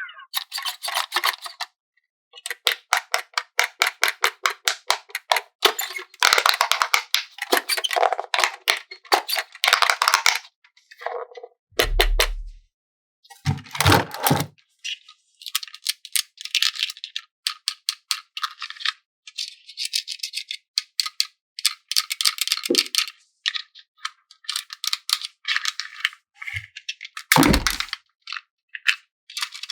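Plastic toy packaging and small plastic parts being handled: rapid crinkling and rattling, with a few dull thuds.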